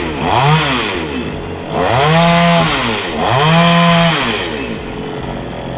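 Petrol chainsaw revved up and let back down three times, the engine pitch climbing and falling each time, then settling to a lower steady running near the end.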